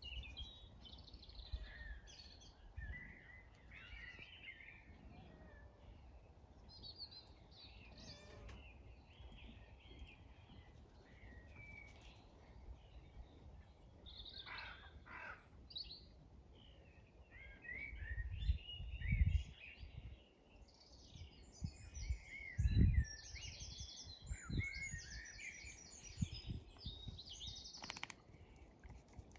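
Garden birdsong: several small birds chirping and trilling, with a fast repeated trill in the second half. Low bumps on the microphone come twice, about two-thirds of the way through, and are the loudest sounds.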